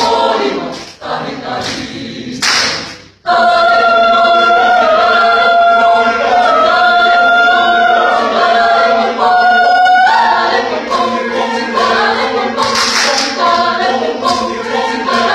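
A choir singing, with long held chords. The singing cuts off abruptly about three seconds in, then comes back at once on a sustained chord.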